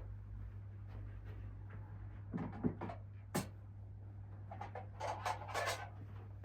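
Handling noises: a few light knocks and a sharp click, then a short spell of clattering and rustling about five seconds in, as of hard plastic gear and magazines being picked up and moved, over a steady low hum.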